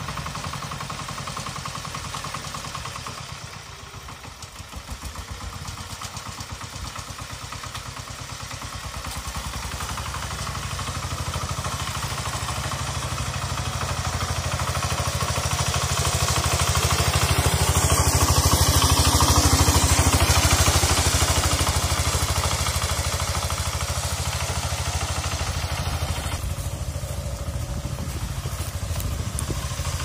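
Kentavr MB 1010DE-6 walk-behind tractor's 10 hp single-cylinder diesel engine running under load as it pulls a trailer of firewood, growing louder as it comes close, loudest a little past halfway, then fading slightly as it moves off.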